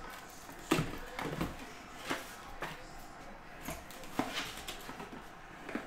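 A stiff cardboard Hit Parade card box being handled and opened by hand: about half a dozen short knocks and scrapes of the lid and box against fingers and the table.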